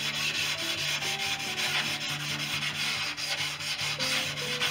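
Sanding block rubbing along the edge of a wooden tailplane frame, a steady rasp of abrasive paper on wood. The edges of the horizontal stabilizer and elevator are being rounded so the fabric covering won't have to wrap a sharp corner.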